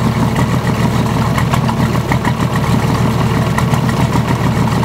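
VM/BMW D190 marine diesel running steadily at idle, rebuilt after a broken valve. Its uploader says it runs badly because of a leaking shaft seal at the front of the injection pump.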